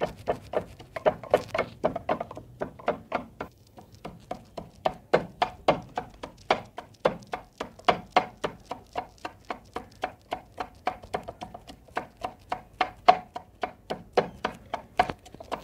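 Wooden pestle pounding in a wooden mortar, crushing coriander, green chillies and garlic into green chutney. A steady rhythm of dull strikes, about three a second.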